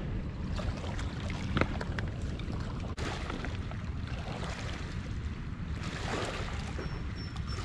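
Steady wash of wind and river water along a rocky bank, with wind rumble on the microphone and a few sharp clicks and knocks, the loudest about one and a half seconds in.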